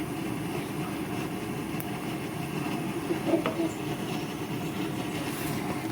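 Food sizzling steadily in a pan on the hob, with one light knock about three and a half seconds in.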